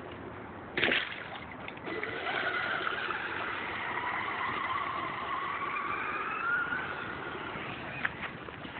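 Electric RC monster truck (Traxxas E-Maxx with 775 motors) driving: a sharp knock about a second in, then a motor whine that rises and falls over several seconds. There is another click near the end.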